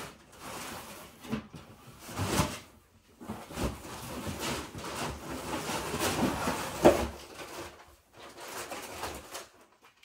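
Cardboard boxes being handled: shoe boxes scraping and rustling against the inside of a large cardboard shipping carton as they are pulled out, with a few knocks, the sharpest about seven seconds in.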